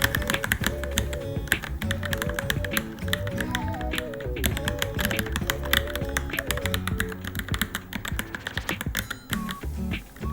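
Fast typing on a Varmilo Minilo keyboard, a quick, uneven stream of key clicks, over background music with a simple repeating melody.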